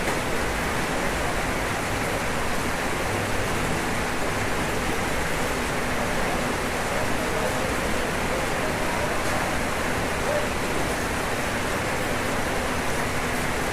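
Steady rain falling on a roof, an even hiss that holds at one level throughout.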